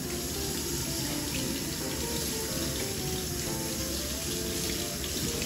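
Kitchen faucet running steadily into a stainless steel sink as hands are rinsed under the stream.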